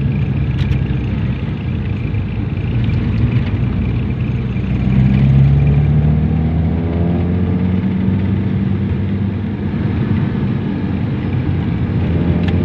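Mitsubishi Lancer's carbureted four-cylinder engine pulling the car along, heard from inside the cabin over road noise. The revs climb about five seconds in, then ease back to a steady run. The carburetor is freshly overhauled and the engine described as very responsive.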